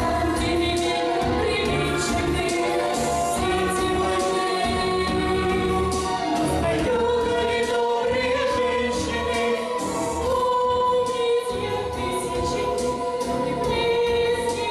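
Choir singing long held notes over an instrumental backing.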